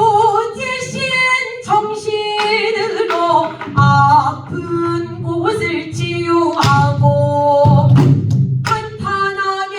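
Pansori singing: a female voice holding long, wavering notes that bend between pitches, with sharp strokes in between, typical of the buk drum that accompanies pansori.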